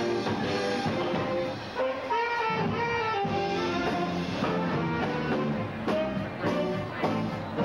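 Live band playing jazz with guitar and drum kit.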